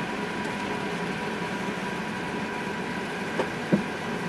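Steady cabin noise inside an Airbus A380 taxiing after landing: the even rush of engines and air conditioning. Two short sounds stand out about three and a half seconds in, the second one the loudest.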